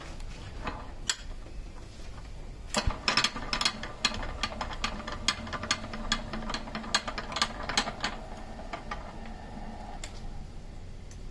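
Electric motor of a small bolt-threading machine starting about three seconds in and running with a steady hum, while its die cuts thread onto the legs of a U-bolt with many irregular sharp metallic clicks and rattles; it dies away near the end.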